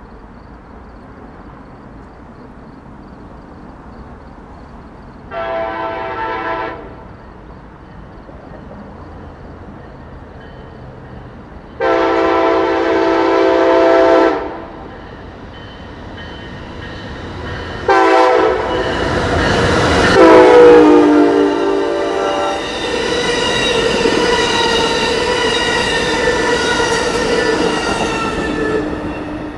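Train horn sounding as a train approaches and passes: a short blast, then a longer one, then a long blast as the train rushes by, loudest about two-thirds of the way through. The horn's chord drops in pitch as the train goes past.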